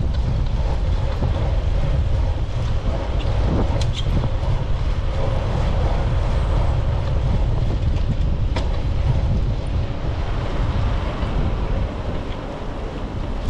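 Wind buffeting the microphone of a bicycle-mounted GoPro while riding, a steady low rumble mixed with the bike's rolling noise on pavement. A few sharp ticks or rattles come through, about four and eight and a half seconds in.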